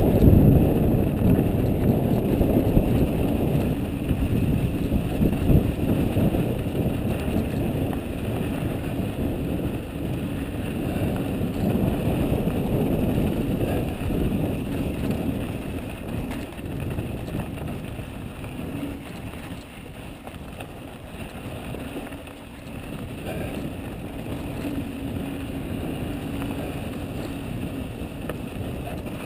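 Wind buffeting the microphone and knobby tyres rolling over loose dirt as a Mojo HD mountain bike descends a trail: a steady rushing rumble, loudest in the first few seconds and easing later.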